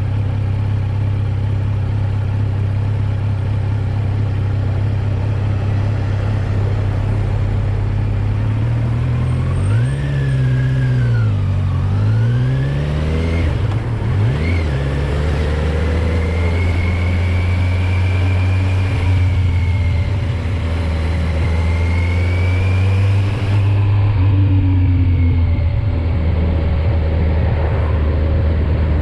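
Kawasaki Z900's inline-four engine, in its 35 kW A2-restricted version, running on the move. It holds a steady note, then from about nine seconds in the revs rise and fall several times before settling into a steady cruise again.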